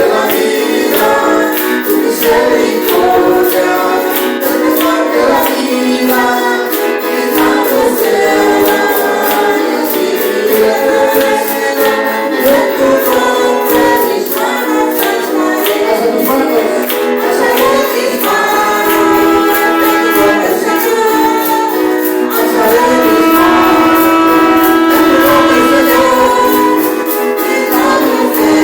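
Spanish-language worship song: voices singing together over instrumental backing, with a steady percussion beat running through.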